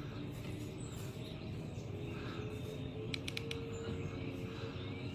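Outdoor background with a low steady hum, and a quick run of four short, high chirps a little after three seconds in.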